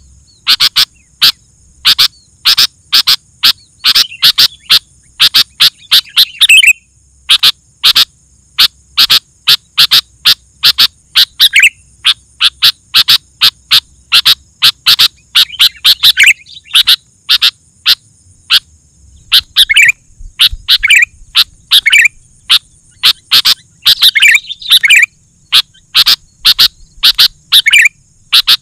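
Sooty-headed bulbul calling loudly: a fast, continuous run of short sharp chattering notes, several a second, broken by curving whistled phrases.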